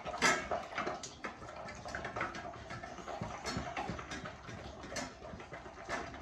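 A boxer and a pit bull eating boiled chicken from stainless-steel bowls: wet chewing, slurping and licking, with irregular clicks of muzzles and tongues knocking against the metal bowls.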